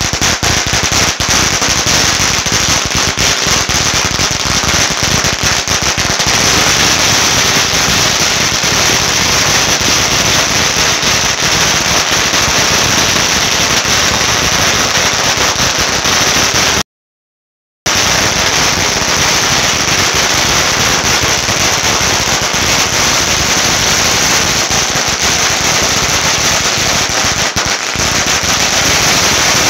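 Strings of red paper firecrackers going off in a rapid, continuous rattle of bangs: separate bangs at first, then a dense unbroken crackle from about six seconds in. The sound cuts out completely for about a second past the middle, then the crackle carries on.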